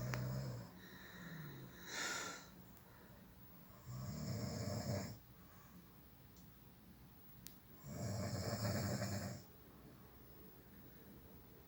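Snoring: long snores about four seconds apart, with quieter stretches between them.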